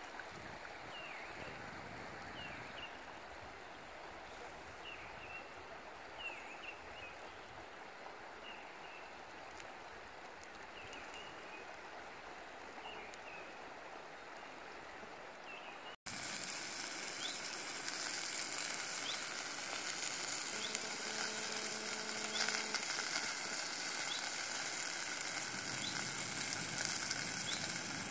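Steady rush of a river in flood, with small birds chirping in short high notes over the first half. After an abrupt cut about halfway, the water noise is louder and fuller, and a faint low hum comes in briefly.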